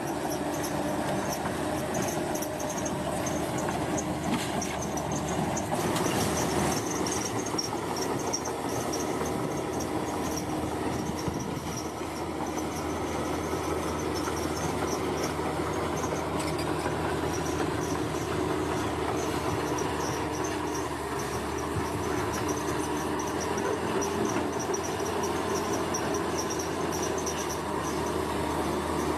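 Komatsu bulldozer's diesel engine running steadily under work. Insects chirp steadily in the background.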